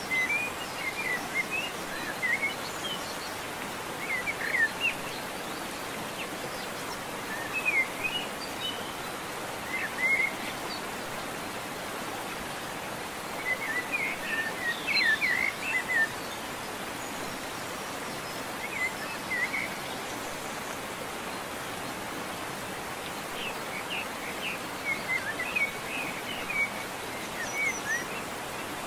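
Small birds chirping in short clusters of quick rising and falling notes every few seconds, over a steady outdoor hiss.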